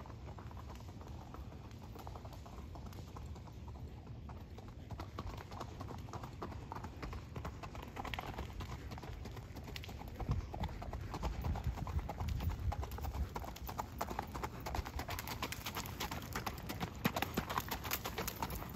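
Hoofbeats of a Missouri Fox Trotter gelding ridden over gravel and packed dirt, a quick, steady run of hoof strikes that grows louder near the end.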